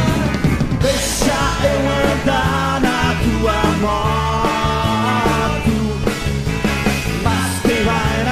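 A rock song with drums, bass and electric guitars playing at full volume, in a stretch between sung lines.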